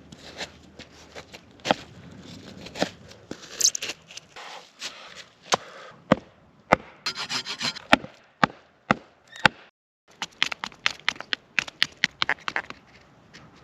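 Dry wood being broken and crushed by hand: a quick series of sharp snaps and cracks with rubbing and scraping between them, in a brief break about ten seconds in and then denser again.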